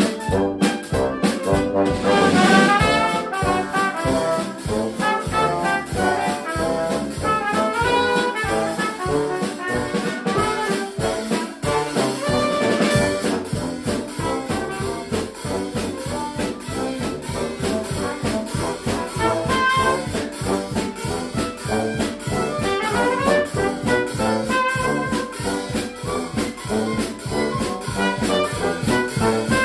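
Small brass-led band playing a tune together: trumpet and trombone over tuba, with fiddle, hammer dulcimer and a drum kit keeping a steady beat.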